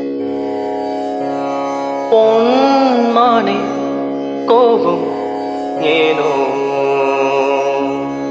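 Melody in raga Sivaranjani: a gliding, ornamented melodic line in separate phrases enters about two seconds in over steady sustained chords.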